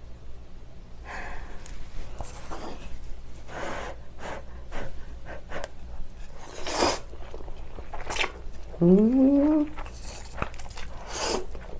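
A person slurping stir-fried noodles up from chopsticks several times, close to the microphone. About nine seconds in comes a short hum that rises in pitch, the loudest sound.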